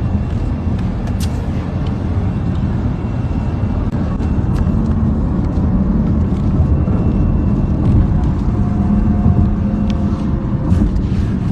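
A car driving: a steady, loud low rumble of engine and road noise, with a few faint clicks.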